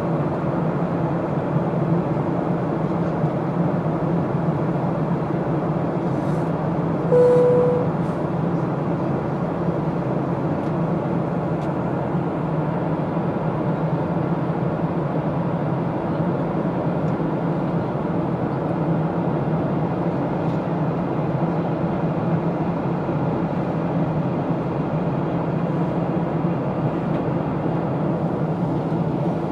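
Steady cabin noise of a Boeing 737 heard from a window seat on descent: a constant low engine and airflow rumble. About seven seconds in, a single short tone sounds briefly over it.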